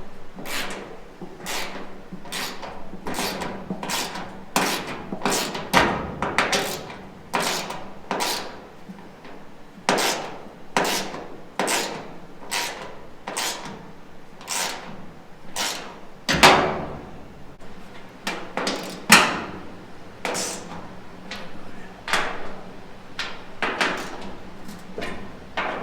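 Repeated hammer blows, unevenly spaced at a little over one a second, each a sharp knock with a short ring. Two blows, about two-thirds of the way through, are louder than the rest.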